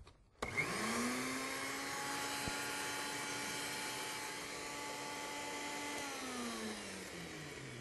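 Countertop blender motor running, blending a thick almond-butter basting sauce on a second pass. It starts about half a second in, rises quickly to a steady speed, then winds down with falling pitch after being switched off near the end.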